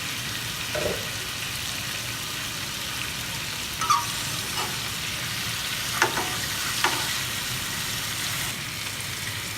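Marinated chicken leg pieces sizzling steadily in a little oil in a pan, with a few light knocks of a utensil as the pieces are turned over.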